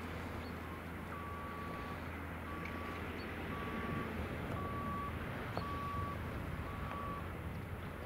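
John Deere 6150R tractor's six-cylinder diesel running steadily under load, pulling a reversible plough through the soil. Over it comes a regular series of about six electronic beeps at one pitch, roughly one a second, starting about a second in and stopping near the end.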